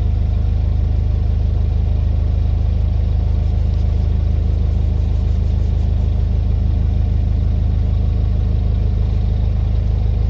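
Narrowboat's diesel engine running steadily at low speed while the boat cruises, a constant low throb.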